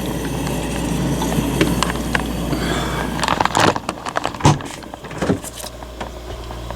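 Steady low machine hum that drops away about three and a half seconds in. A few sharp knocks and clicks of handling follow.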